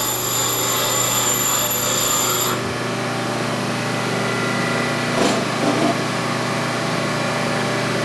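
Bench grinder running with a steady motor hum, and a short grinding scrape against the wheel about five seconds in.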